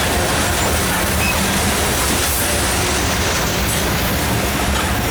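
Loaded coal train rolling past, its steel wheels running steadily on the rails.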